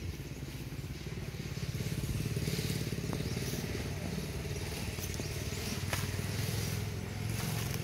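A small engine running steadily, a low hum that grows a little louder about two seconds in, with a few light clicks over it.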